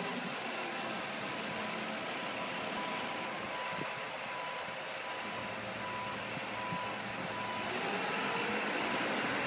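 Reversing alarm of a boat-yard forklift beeping in a steady repeated series, over the machine's engine running.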